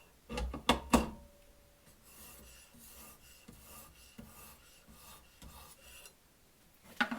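Three sharp knocks in the first second, then a 1,000-grit sharpening stone rubbing along a steel knife edge in light strokes, about two a second, which stop about a second before the end. These are the finishing strokes that realign the freshly sharpened edge.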